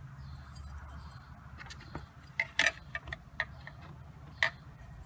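Scattered small clicks and taps of metal and plastic as the 12-volt chainsaw sharpener's guide and stone are handled and lined up on the saw chain, several close together about halfway through and one more near the end.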